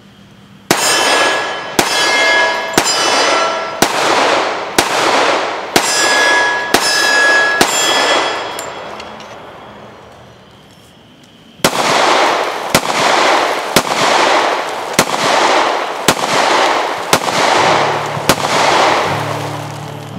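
Colt Wiley Clapp CCO .45 ACP 1911 pistol fired in two strings of shots, about one a second, each shot with a long ringing tail. The first string has about eight shots. After a pause of about three seconds, the second string begins.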